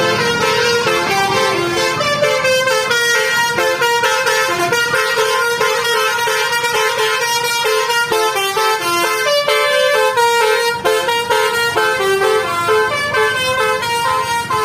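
Indonesian 'telolet' bus horn, a basuri multi-tone horn, playing a melody of quick, stepped notes without a break.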